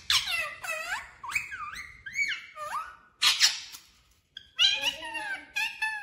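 Pet parakeet giving a run of high, squeaky calls and chatter, each note sweeping quickly up or down in pitch, with a short pause about four seconds in.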